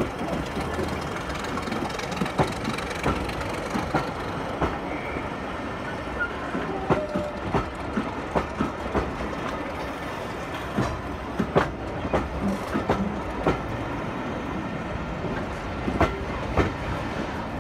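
A train of passenger coaches passing close by, with a steady rumble and the wheels clacking over rail joints, the clacks often coming in quick pairs.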